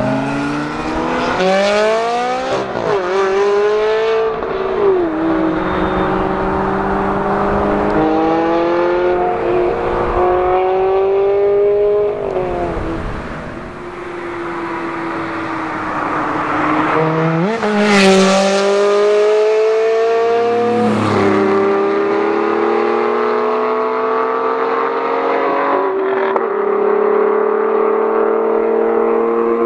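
Ferrari 360 Challenge Stradale's V8 accelerating hard through the gears, the engine note rising and dropping back with each upshift, again and again. About 18 seconds in there is a sharp loud peak as the car passes, and then it holds a steady high note.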